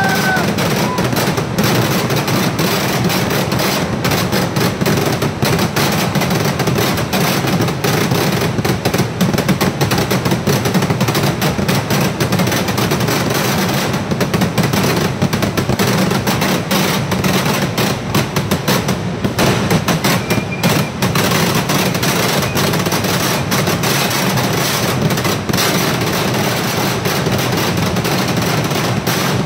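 Kerala temple-festival fireworks (vedikkettu): a dense, unbroken barrage of firecrackers going off, many bangs a second, with no pause.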